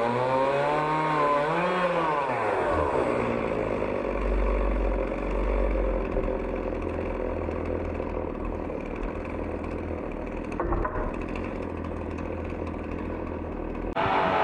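Small chainsaw running steadily as it cuts through a log on a home-made chainsaw sawmill, taking over as music fades out in the first few seconds; it cuts off abruptly near the end as music returns.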